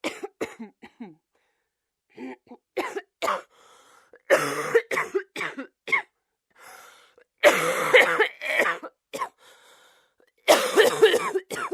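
A person coughing in a string of separate fits: a few short coughs at first, then longer coughing bouts in the middle and near the end, with dead silence between them.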